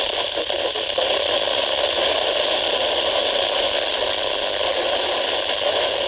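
Radio static: steady hiss from a receiver tuned to a weak NOAA Weather Radio signal.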